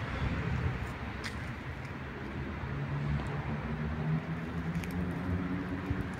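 Low rumble of a distant vehicle, with a hum that rises slowly in pitch and a few light clicks.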